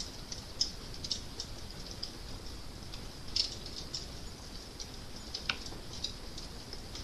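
Fire crackling: irregular sharp pops and snaps over a low steady rumble.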